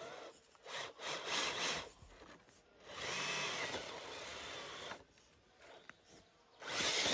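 Electric motor and gears of an RC crawler truck whirring in three short bursts of throttle, the middle one the longest.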